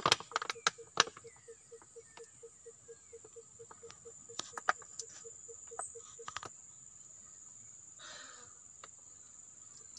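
Steady high-pitched trill of crickets, over a low, rapid pulsing chirp about four times a second that stops partway through. A few sharp clicks and knocks come in the first second and again about four and a half seconds in, from handling the oil bottle at the final drive fill port.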